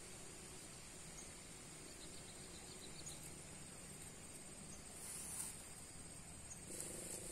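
Faint steady high-pitched insect chirring, with brief louder hissy bursts about five and seven seconds in; a low steady hum joins near the end.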